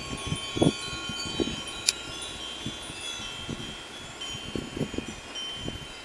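Many small metal temple bells hanging from a Thai temple's roof corners and spire, rung at random by the wind, their high ringing tones overlapping and lingering. Low gusts of wind buffet the microphone, the strongest about half a second in.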